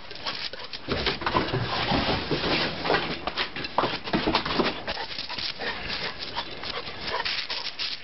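A dog whining and whimpering in short pitched calls, most of them in the first half, over scuffing and crunching steps on snow.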